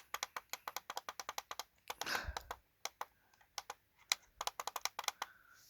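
Plastic buttons on a digital alarm clock clicking in quick succession as the alarm time is set, with a brief rustling burst about two seconds in, then slower, scattered clicks.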